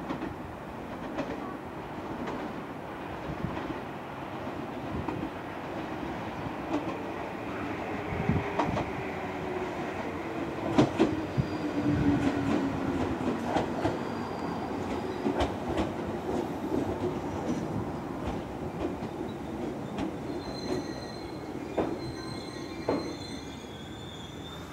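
JR East 211 series electric multiple unit arriving and slowing to a stop. Its wheels click over rail joints as it passes. A low hum falls in pitch as it slows, and thin high brake squeals come near the end.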